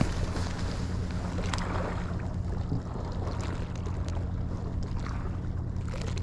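A boat engine running steadily as a low even hum, with wind on the microphone and a few faint clicks.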